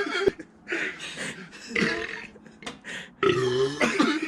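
A man burping: a long, loud, deep burp about three seconds in, after a sharp click and a few short breathy sounds.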